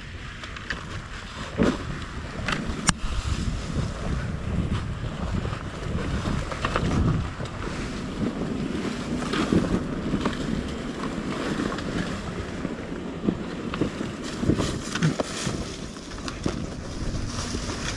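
KTM EXC-F 250 fuel-injected four-stroke single-cylinder enduro engine running on a slow trail ride, with wind on the microphone and a few sharp knocks from the bike over the rough ground.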